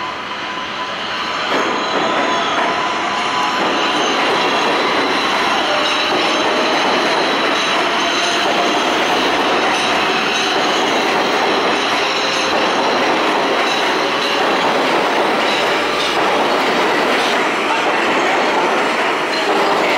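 Subway train running along a curved track, its steel wheels squealing against the rails, with clacking from the wheels over the rail joints. The noise swells about a second and a half in and stays loud and steady.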